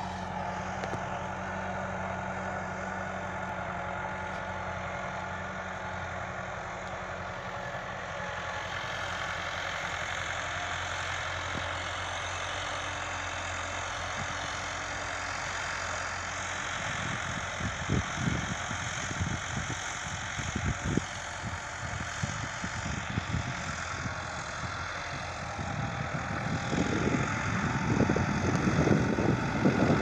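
Tractor engine running steadily while it pulls a tine cultivator through the soil. About halfway through, an irregular low rumbling joins in, and it grows louder near the end.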